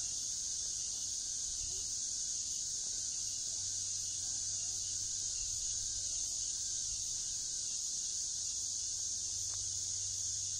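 Steady, high-pitched chorus of insects droning without a break, over a low steady hum.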